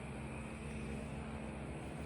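Husqvarna FE 350 enduro bike's single-cylinder four-stroke engine idling steadily through its exhaust.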